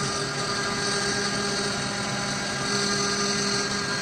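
Avid CNC router's spindle and end mill cutting a pocket into a hardwood block: a steady whine and hum over the noise of the bit chewing through the wood.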